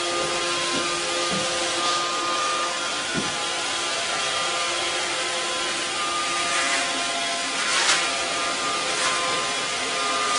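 Robot vacuum running with a steady whirring hiss and a thin motor whine. A brief louder swell of noise comes about eight seconds in.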